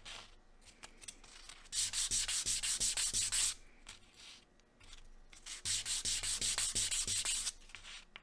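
Sandpaper rubbed quickly back and forth over a small wooden quarter-sphere piece, smoothing its edges. The sanding comes in two short bouts of rapid, even strokes, the first starting about two seconds in and the second about five and a half seconds in.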